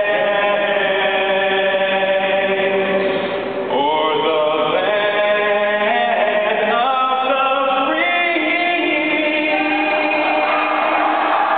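A young man singing the national anthem solo into a hand-held microphone, holding long notes that step up in pitch several times.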